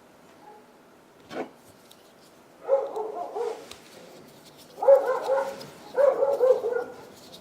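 Three short runs of wavering, voice-like calls, the middle and last the loudest, preceded by a single sharp click.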